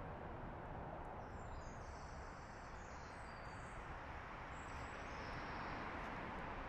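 Steady outdoor background noise, with faint high-pitched chirping from about one second in until past five seconds.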